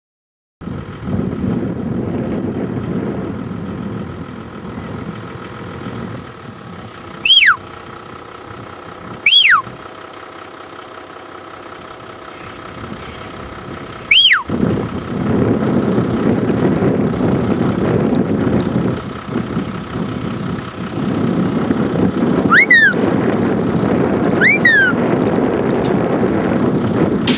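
Shepherd's whistle commands to a working kelpie: three loud, sharp whistles sliding down in pitch, spaced a few seconds apart, then two shorter falling whistles near the end. Under them runs a steady low rumble.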